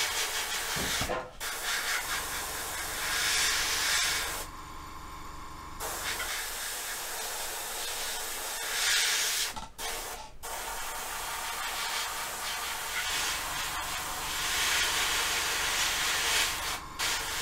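Gravity-feed airbrush spraying paint: a steady hiss of air and paint. It cuts off briefly a few times as the trigger is let go, longest for about a second a little over four seconds in.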